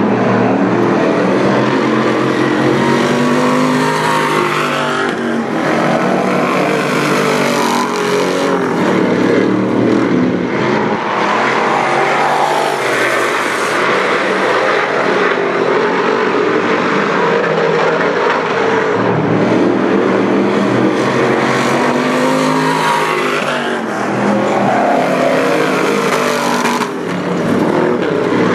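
A dirt modified race car's V8 engine running hard on practice laps. Its pitch climbs and falls again and again as the car accelerates down the straights and lifts into the corners, and the sound swells and fades as the car comes past and goes away around the oval.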